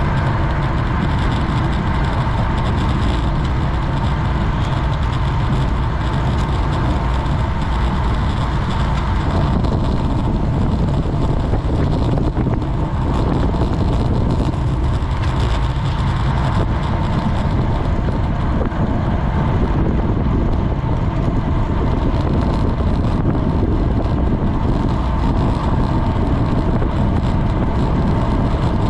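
Steady wind rush buffeting a GoPro's microphone on a road bike ridden at race speed, with rolling road and tyre noise underneath.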